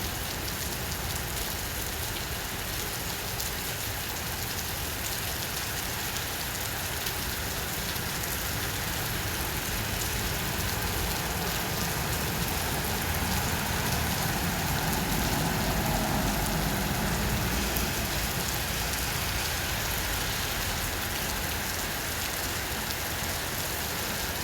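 Heavy rain falling steadily onto surfaces, a dense continuous patter that swells a little louder around the middle.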